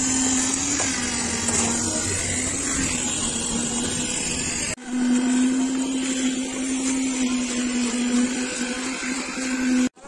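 Steady drone of a motor on concrete-pouring machinery running at a constant pitch. It breaks off for an instant about halfway through and resumes.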